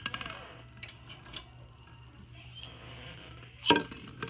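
Light clicks and taps, with one louder knock about three and a half seconds in, as hard-boiled eggs are lifted out of the pressure cooker and set into a bowl.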